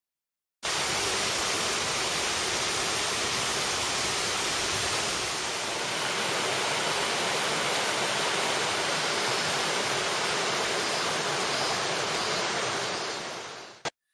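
Mountain river rushing over rocky rapids, a dense steady roar of water. It starts abruptly about half a second in, then fades and cuts off just before the end.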